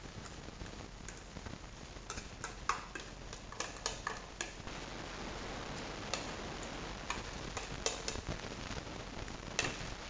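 Spatula scraping and tapping ground chili paste off a plastic lid and bowl: light clicks and scrapes, a quick run of them a few seconds in, then single clicks about a second apart.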